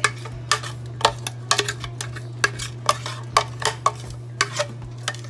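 Quick, irregular clinks and knocks of a utensil and blender jar against a stainless steel pot as thick blended jerk marinade is scraped and tapped out onto raw chicken.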